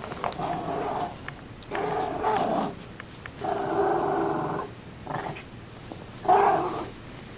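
A pet dog making a run of drawn-out pitched sounds, about five of them, each up to a second long with short pauses between.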